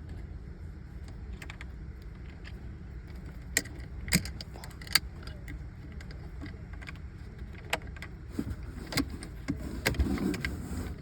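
Scattered sharp metal clicks and clinks of hand tools and kill-switch hardware being handled, a few seconds apart and thickening near the end, over a steady low hum.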